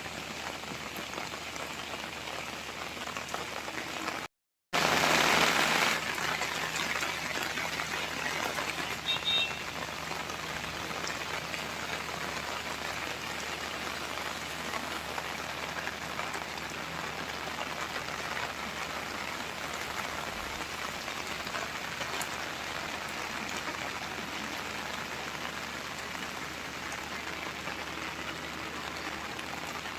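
Steady rain falling. About four seconds in, the sound drops out completely for a moment, then comes back louder for a second or so before settling.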